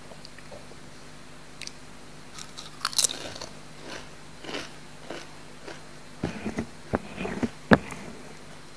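Close-up crunching and chewing of crisp tortilla chips: sharp crunches that start about a second and a half in and come in irregular bites, one of the loudest near the end.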